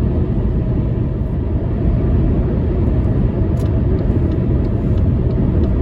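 Steady road and engine noise heard from inside a moving car's cabin: a dense low rumble, with a few faint light ticks partway through.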